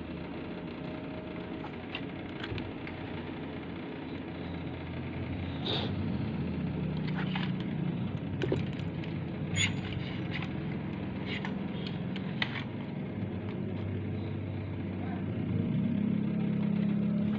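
Steady low engine hum of motor traffic, growing louder near the end, with scattered light clicks and taps from wire being wound and handled.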